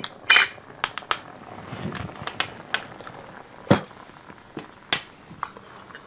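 Metal spoon clinking against the glass upper bowl of a Hario siphon coffee maker while stirring the brewing coffee: a scatter of separate sharp clinks, the loudest near the start with a short ring.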